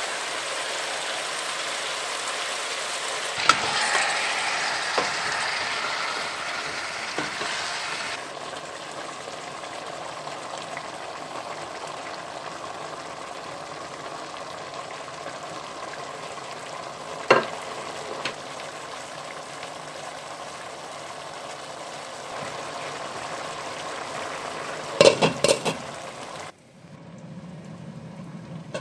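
Chicken drumsticks and carrots sizzling in hot oil in a stainless steel pot, a steady hiss broken by a few sharp knocks against the pot, several close together near the end. The sizzle drops suddenly about two seconds before the end.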